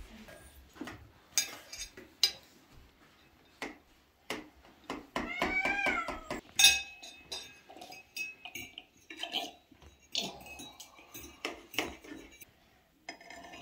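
Dishes and cutlery clinking and knocking, with one long cat meow about halfway through that rises and then falls in pitch.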